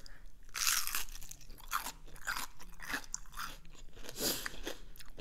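Bite into a crisp fried onion ring about half a second in, then a run of crunches as it is chewed.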